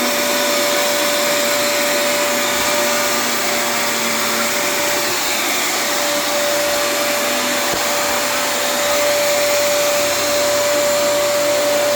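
Vacuum cleaner running steadily: an even hiss of air with one constant whine, no change in speed.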